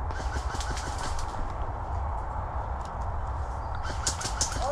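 Airsoft guns firing rapid full-auto bursts, a run of sharp clicks about ten a second lasting about a second, then a shorter burst near the end, over a steady low rumble of wind and handling noise on the camera mic.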